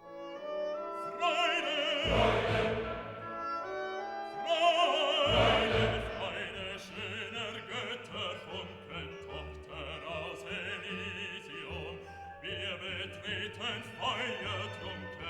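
Background music: a classical piece with an operatic singing voice, its held notes wavering with vibrato and swelling louder about two and five seconds in.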